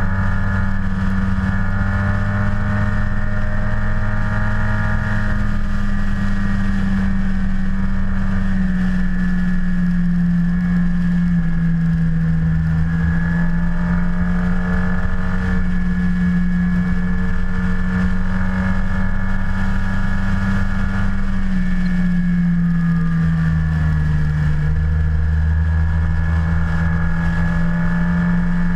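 Yamaha TMAX maxi-scooter's parallel-twin engine running steadily at a nearly constant pitch, which drops slightly about a third of the way in and again past two-thirds.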